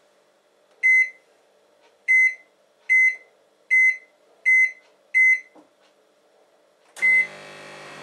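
Microwave oven keypad beeping six times as its buttons are pressed, then a seventh beep as it is started, and the oven begins running with a steady hum.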